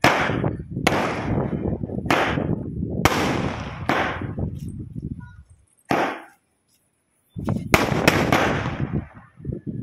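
Ayyan Crackers 'Dil Maange More' firework firing a series of sharp shots, about one a second, each trailing off. After a break of about a second and a half, three shots come in quick succession near the end.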